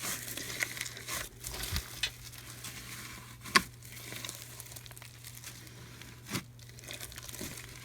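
Hands kneading and squishing a large mass of slime packed with foam beads: a soft, steady crackling, with a few sharp pops, the loudest about three and a half seconds in.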